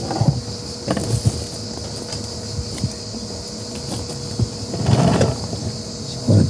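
Insects chirring steadily in the background, with scattered low knocks and rustling that are loudest just after the start and about five seconds in.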